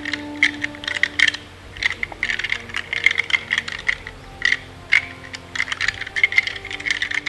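Deer-rattling sample: rapid, irregular clacking and grinding of antler-like tines in quick clusters, imitating bucks sparring, over soft background music. The clacking stops near the end.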